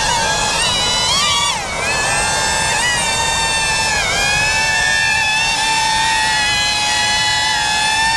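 DJI Avata FPV drone's ducted propellers whining steadily in flight as it comes in to land, the pitch dipping and recovering about one and a half seconds in and again around four seconds in.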